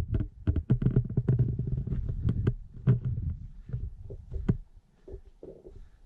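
Low rumble of wind buffeting the microphone, with irregular knocks and scuffs of footsteps and camera handling on a rocky trail; it dies down after about four and a half seconds.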